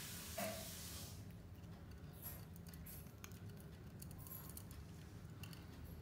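Faint, scattered clicks and light taps of two budgerigars pecking and nibbling at a badminton racquet's strings and at grass stems, after a soft hiss in the first second.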